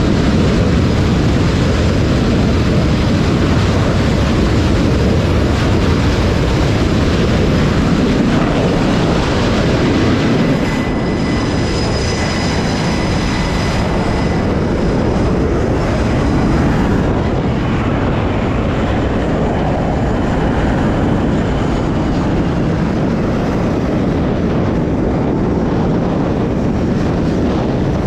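Jet aircraft engines running on a carrier flight deck, a loud steady noise, with a faint high whine for a few seconds in the middle.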